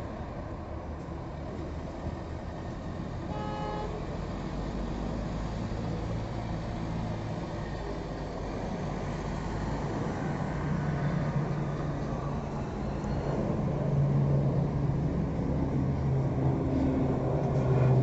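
Buddha Air ATR 72-500's twin Pratt & Whitney PW127 turboprops at takeoff power: a low propeller drone that grows steadily louder as the aircraft departs and climbs out. A short horn toot sounds about three and a half seconds in.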